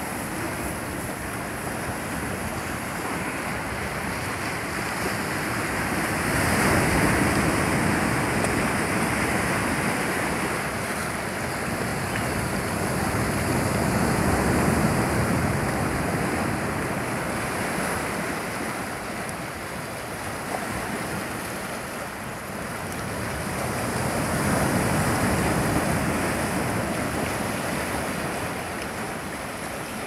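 Sea surf breaking and washing among boulders on a rocky shore: a steady rush of water that swells louder three times, about seven, fifteen and twenty-five seconds in.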